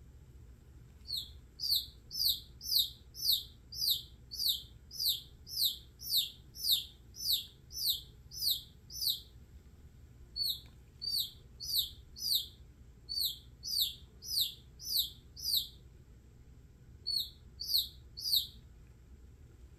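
Baby chick peeping: loud, high, downward-sliding peeps about two a second, in three runs broken by short pauses.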